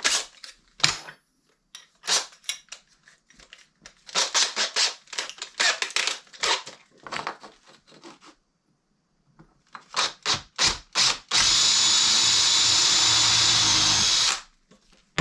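Cordless drill: a run of rapid clicks and rattles as the bit is changed and the chuck tightened, then the drill motor running steadily for about three seconds while it bores out a hole with an 8.5 mm bit, stopping abruptly.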